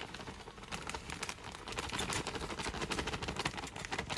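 Potting soil being added around a repotted plant's roots in a plastic pot: a dense, irregular run of small crackles and ticks.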